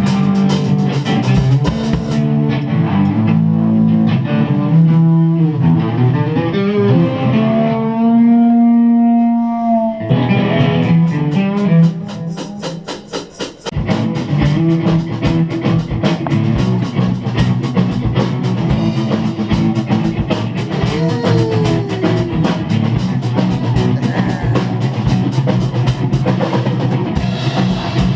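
Rock band playing live at a sound check: guitar, bass and drum kit. Around the middle the drums drop out and a guitar holds sustained notes, the sound dips briefly, and then the full band comes back in with steady drumming.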